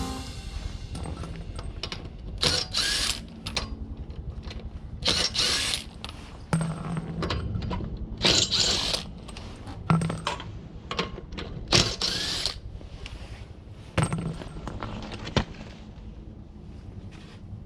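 Ratchet wrench clicking in quick runs on a car wheel's nuts, with louder short metallic knocks and scrapes now and then.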